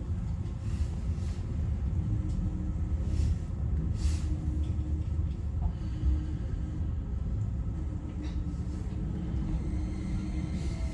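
Steady low rumble and hum inside the passenger cabin of a Keio 5000 series train.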